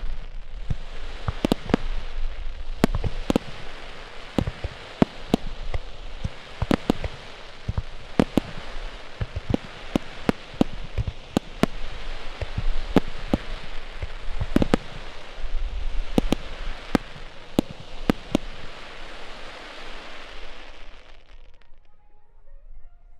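Aerial fireworks bursting: an irregular run of sharp bangs over a constant crackling hiss. The barrage stops about 21 seconds in.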